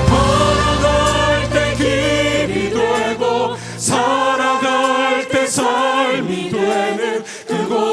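Voices singing a Korean worship song with accompaniment; the low bass accompaniment drops away about three and a half seconds in, leaving mostly the singing.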